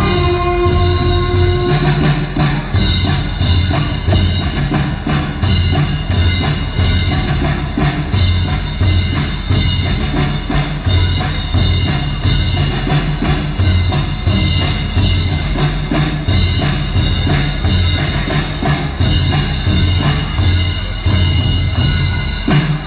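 Brass band with drums playing a steady beat. Held horn notes sound for the first couple of seconds, then drums and percussion carry the music.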